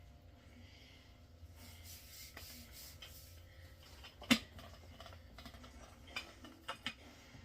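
Rolling pin rolling out bread dough on a floured counter, a soft rubbing sound, with one sharp knock a little past halfway and a few lighter knocks near the end.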